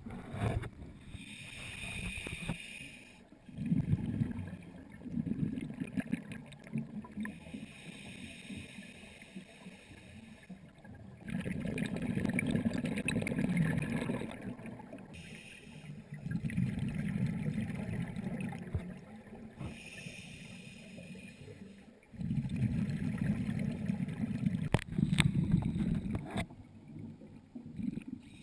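Scuba diver breathing through a regulator underwater, heard through a camera's dive housing. Each short inhalation hisses through the regulator, and each longer exhalation follows as a gurgling rush of bubbles, in a slow, even rhythm of about four breaths.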